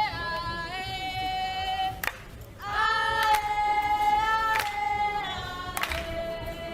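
Vocal music: long held sung notes in a choir-like sound, stepping from one pitch to another, with a brief pause about two seconds in.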